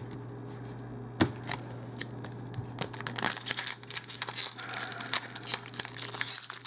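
Foil wrapper of a Magic Origins booster pack crinkling and being torn open, a dense crackling rustle that starts about three seconds in. A single click comes about a second in.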